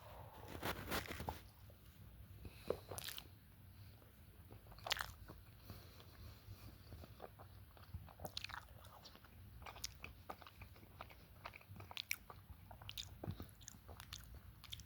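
A person biting into and chewing crunchy taquitos close to the microphone: faint crunches and mouth clicks, with a few louder crunches in the first five seconds.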